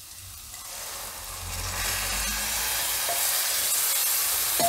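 A pan of spiced onion-tomato masala sizzling as boiled pigeon peas are tipped into it; the sizzling swells over the first couple of seconds, then holds steady.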